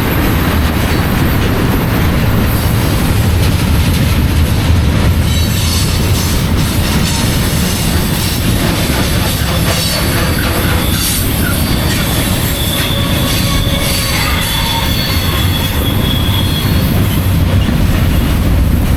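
Freight train rolling past close by: a steady loud rumble of the cars with wheel clatter, and thin high wheel squeal joining from about a third of the way in.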